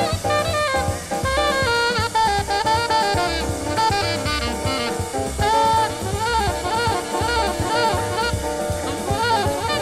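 Jazz recording: a saxophone plays a moving, wavering melody over a drum kit keeping a steady beat.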